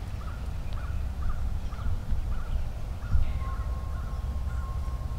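A crow cawing in a long, even series, about two to three caws a second, over a low rumble; a single knock sounds about three seconds in.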